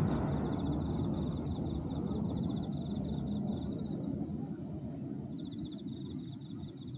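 Low rumble of a large aerial firework shell's burst dying away, with insects trilling steadily in rapid high pulses.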